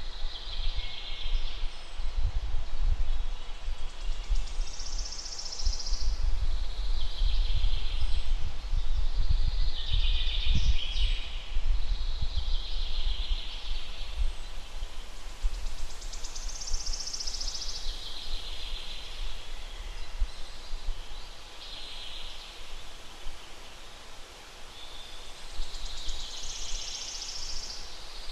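Songbirds singing short phrases every two to three seconds. Gusty wind buffets the microphone, strongest in the first two-thirds, then easing off.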